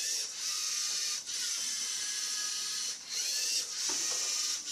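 Small toy robot's electric drive motors and gearing whirring as it drives and turns, with brief pauses about a second in and about three seconds in as it switches between moves.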